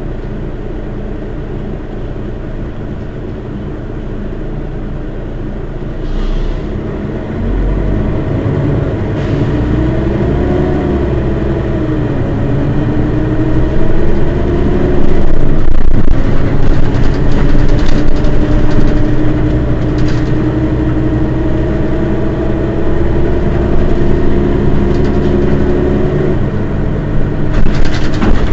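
Mercedes-Benz Citaro city bus engine running at a stop. A whine wavers up and down in pitch, then holds steady, and the engine grows louder from about halfway in. A few clicks come near the end.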